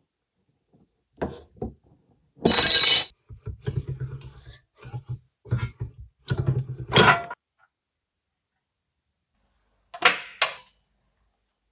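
Workshop metalworking sounds: scattered knocks and clatter, with a loud half-second burst of noise about two and a half seconds in and a low hum under further knocks after it, then two more knocks near the end.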